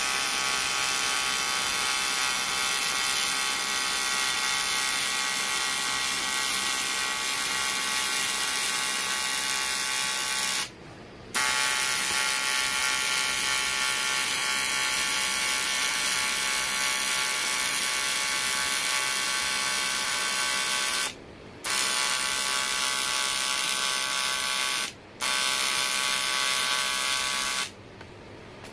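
Aluminium welding arc buzzing steadily in long runs, stopping briefly three times and cutting off near the end as the welder breaks the arc.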